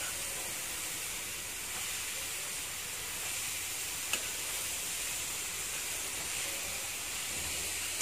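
Chopped purple cabbage and grated coconut sizzling in a hot pan with a steady hiss as it is stirred with a spatula. There is one sharp click of the spatula against the pan about four seconds in.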